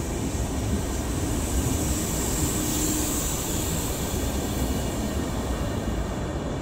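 Renfe regional electric multiple unit pulling out of the station, its carriages rolling past with a steady rumble and a high hiss. The hiss drops away about six seconds in as the rear cab passes.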